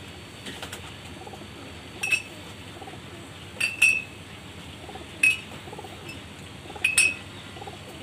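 Caged pigeons cooing softly over and over, with a handful of sharp, high clicks standing out loudest, two of them doubled.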